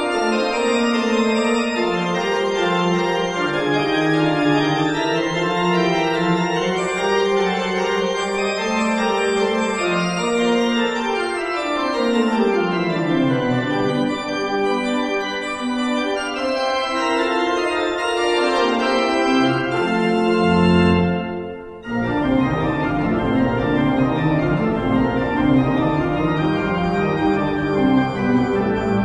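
Church organ playing sustained full chords, with a bass line that steps down about halfway through. The music breaks off briefly about three quarters of the way in, then goes on with deep bass notes underneath.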